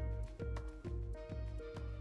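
Background music with a steady beat of a little over two strokes a second, a deep bass and held melody notes.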